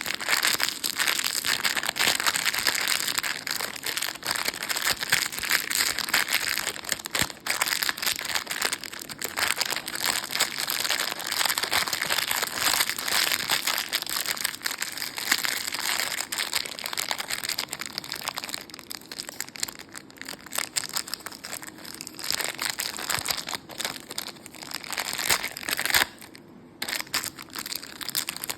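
Plastic candy and lollipop wrappers crinkling and crackling almost without pause as they are handled, easing off briefly near the end.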